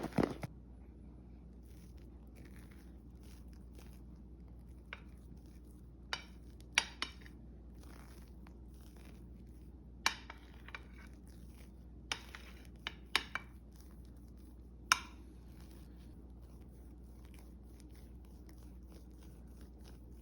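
Scattered light clicks and taps of a utensil against a dish, about eight over the stretch, as Cool Whip frosting is mixed and handled, over a low steady hum.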